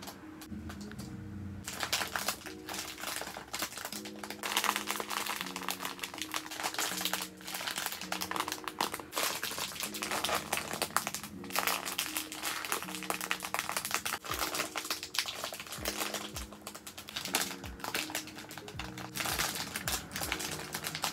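Thin clear plastic bags crinkling as hands squeeze jumbo bread-bun squishies through their wrappers, a dense irregular crackle that starts about a second and a half in. Soft background music plays underneath.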